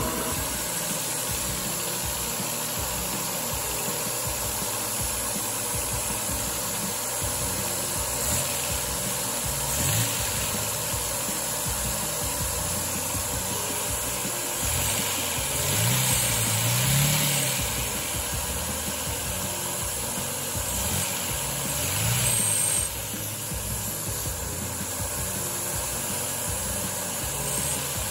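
A Lego vacuum engine, a tiny inline four with 2x2 pistons and a cross-plane crank, running on suction from a vacuum cleaner hose. The vacuum cleaner's steady rush is the loudest part, and the engine's speed rises and falls a few times as its slide throttle is worked. The throttle squeaks loudly.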